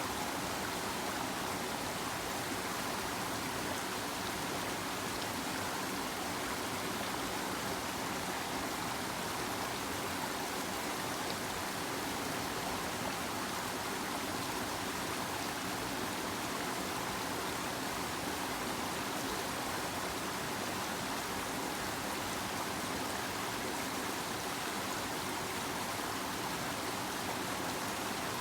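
River water flowing steadily, a continuous rushing and babbling with no breaks.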